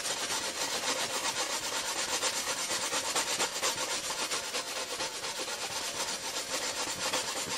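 Wet 3M drywall sanding block scraped back and forth along the freshly cut edge of a glass pane in quick, even strokes, smoothing the sharp edge with water as lubricant.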